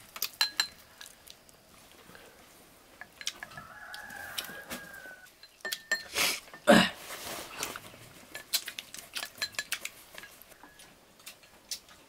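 A rooster crows once in the background, one long call about three seconds in. Chopsticks and bowls clink throughout, with a louder clatter a little past halfway.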